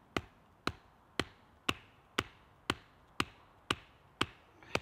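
Hatchet striking the top of an upright wooden stake to drive it into the ground: ten sharp, even knocks, about two a second.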